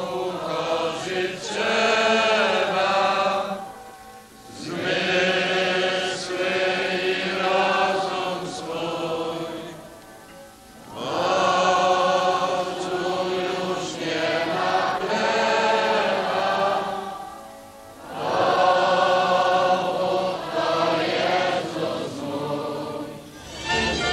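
A congregation singing a hymn together, many voices in long sung phrases of about six seconds with brief pauses for breath between them.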